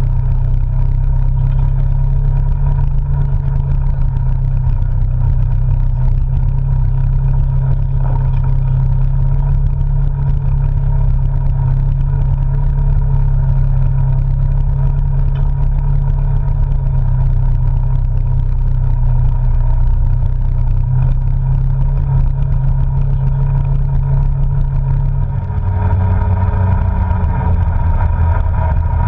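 Polaris RZR side-by-side's engine running steadily under way on a dirt trail. Near the end the engine note dips briefly, then picks up higher and louder.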